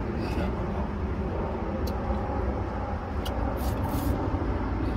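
A person slurping and eating cold noodles from a bowl, a few short slurps, the longest about three and a half seconds in, over a steady low outdoor rumble.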